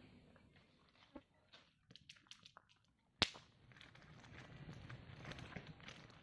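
Faint crackling and popping of a wood fire in a cooking hearth, with one sharp snap about three seconds in and a run of small crackles near the end.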